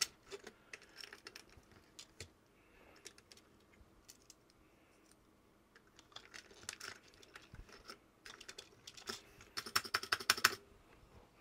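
Small plastic clicks and taps as a replacement spring and keycap are fitted to a Commodore Plus/4 keyboard key, then a quick flurry of key clicks near the end as the key is pressed.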